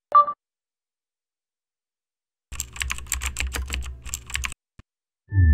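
Computer keyboard typing sound effect: a quick run of key clicks lasting about two seconds, after a short electronic blip near the start.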